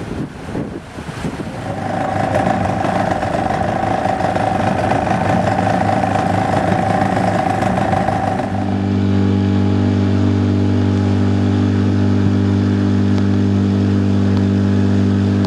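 Motorboat engine running at a steady speed while towing an inflatable tube, over wind and water noise. A little past halfway the engine sound changes abruptly to a steadier, lower hum.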